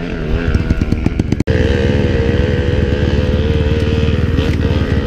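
Dirt-bike engine running close by, its note wavering at first and then holding a steady pitch under throttle. A very brief break in the sound comes about a second and a half in.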